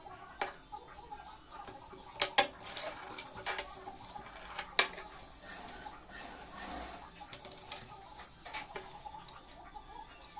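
Scattered clinks and taps of a thin metal tube and a metal rod being handled and set down on a wooden table, with a few sharp clicks in the first half.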